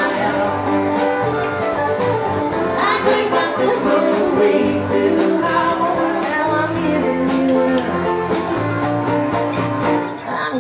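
Live country music played on fiddle and strummed acoustic guitar.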